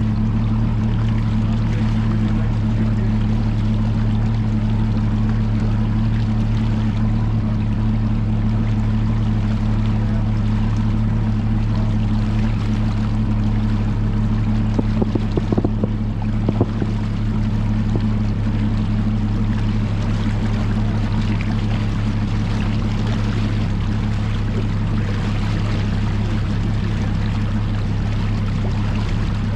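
Bass boat's outboard motor running at a steady cruising speed, a constant low hum over the rush of water along the hull and wind. A few short knocks come about halfway through.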